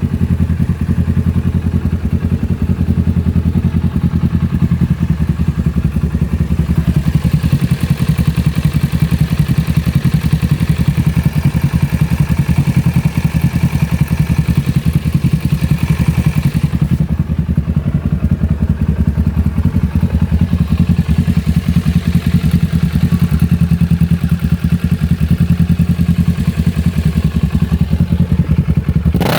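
Kawasaki ER-6n's 649 cc parallel-twin engine idling steadily through a Termignoni full-system aftermarket exhaust, an even, rapid pulsing burble.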